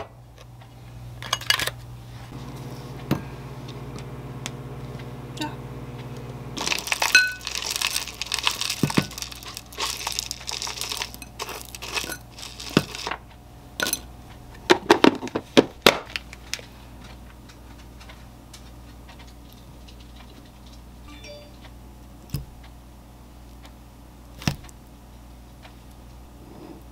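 Plastic food packaging crinkling and tearing open, then granola and almonds scattered onto yogurt in a glass bowl with a flurry of light clicks and clinks, and a few single taps later. A low steady hum runs for a few seconds near the start.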